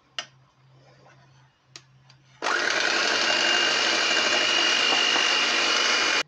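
Electric hand mixer whisking eggs and sugar in a steel saucepan. It starts about two seconds in and runs steadily with a high whine over its whirr, then cuts off suddenly near the end.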